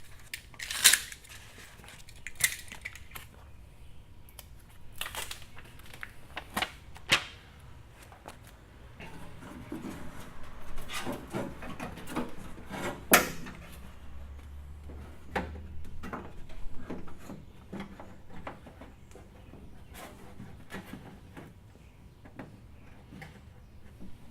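Scattered sharp clicks, taps and rustling of hands at work: cutting and handling pieces of self-adhesive sound-deadening mat and working them onto a car door's sheet-metal skin.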